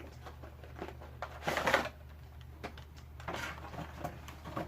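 Plastic toy packaging being handled: rustling and clicking, with a louder crinkle about a second and a half in and another shorter one a couple of seconds later, over a steady low hum.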